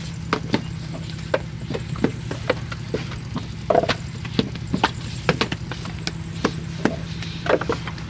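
Hand-moulding of clay bricks: irregular knocks and slaps as wet clay is thrown into wooden brick moulds and the moulds are knocked out onto the ground, a few strokes a second, over a steady low hum.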